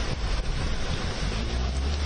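Steady rushing and splashing of floodwater as cars drive through a waterlogged road, with a low rumble underneath that grows stronger near the end.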